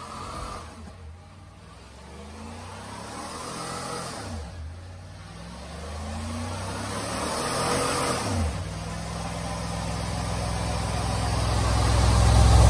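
Chevrolet Silverado pickup's engine revving hard through a burnout with the rear tyre spinning on concrete: the revs climb and drop several times, then hold high and build to the loudest point, cutting off suddenly at the end.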